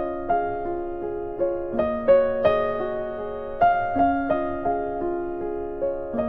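Background music: a soft piano melody of struck notes, each ringing and fading.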